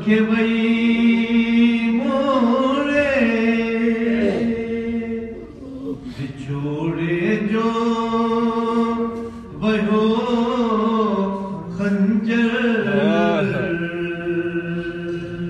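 A man chanting a Sindhi salam, a mournful devotional elegy, in long held notes with wavering ornamented turns and short breaths between phrases.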